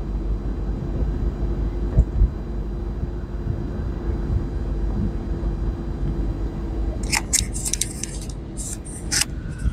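Car cabin noise while driving: steady low road rumble and engine hum. A couple of knocks come about two seconds in, and a few seconds of scratchy rasping come near the end.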